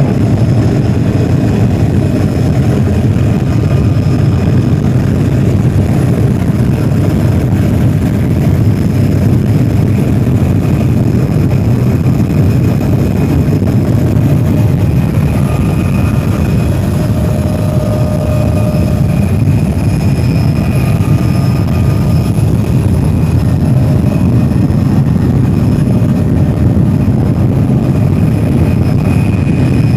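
Helicopter's engine and rotor running steadily in flight, heard from inside the cabin, with a faint high whine over the low noise.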